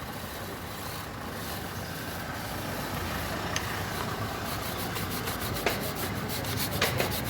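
Chain cleaner brush scrubbing a WD-40-soaked motorcycle drive chain, the bristles rasping over the metal links in quick strokes that grow busier in the second half, with a few sharp clicks. A low steady rumble like distant traffic lies underneath.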